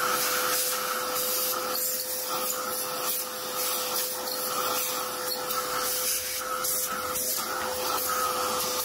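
Vacuum cleaner running steadily, a constant rushing of air with a steady whine, its hose nozzle sucking debris out of an espresso grinder's burr chamber.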